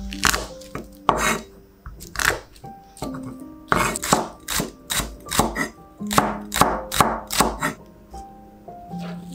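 Kitchen knife chopping on a wooden cutting board: a few spaced strokes, then a quicker run of cuts through green onion that stops near the end. Soft background music plays under it.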